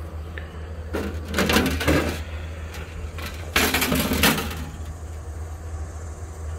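The sheet-metal front door of a Little Chief smoker being pulled off, metal scraping and rattling in two short bursts, about a second in and again about three and a half seconds in.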